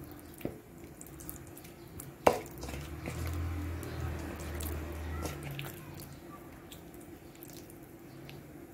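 Wet squelching and small clicks of a hand working marinated chicken pieces in masala paste in a steel bowl, with a sharp knock about two seconds in and a low hum for a few seconds after it.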